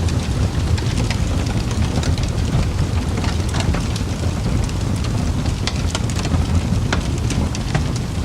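Fireplace crackling: a steady low rumble of burning wood with many irregular sharp pops and snaps.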